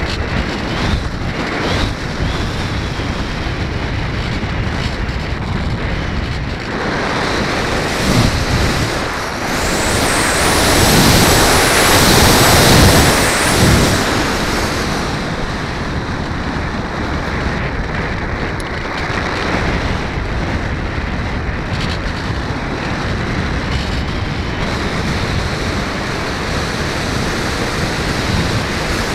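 Wind rushing over the onboard camera's microphone on an RC foam plane in flight, a steady noise that swells louder for a few seconds around the middle, with a faint high whine during the loudest stretch.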